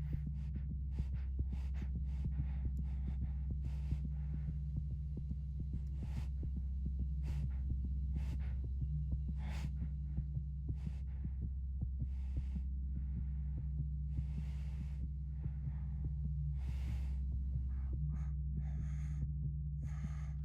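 A steady, deep low hum or drone, with soft scattered clicks and light rustling noises over it.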